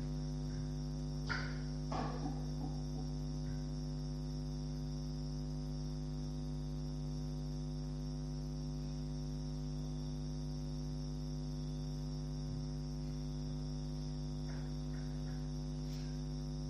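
Steady electrical mains hum with a stack of even overtones, under a faint continuous high chirr of crickets. A couple of faint short sounds come about one and two seconds in.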